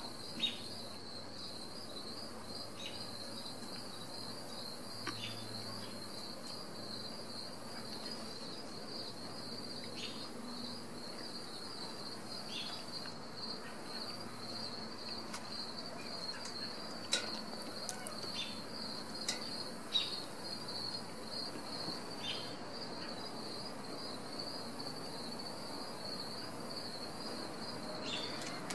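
Steady high-pitched insect chirping, pulsing rapidly without a break, with about ten light clicks and taps scattered through it.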